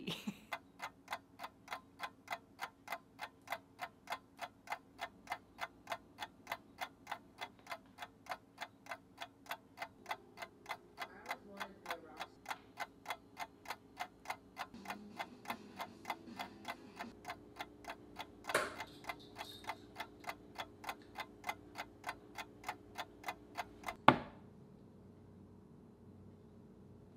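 A clock ticking steadily, about two ticks a second. A sharp knock comes about two-thirds of the way in, and near the end a dart thuds loudly into a Winmau Blade bristle dartboard, after which the ticking stops.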